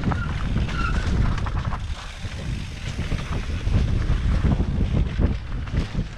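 Mountain bike ridden over rough dirt trail: wind buffeting the microphone over a low rumble of tyres, with many short rattling knocks from bumps.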